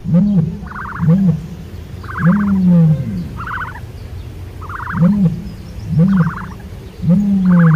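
An animal calling loudly over and over, about once a second, each cycle a low call that rises and falls in pitch alternating with a higher, buzzy call.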